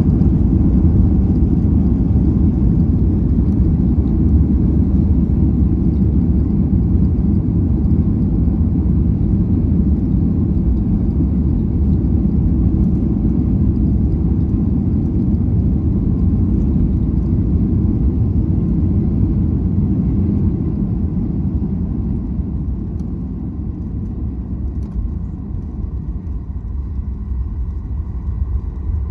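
Steady low cabin rumble of a Boeing 737 MAX 8 airliner during the landing, heard from a rear window seat; it eases off after about twenty seconds, leaving a faint steady engine whine near the end.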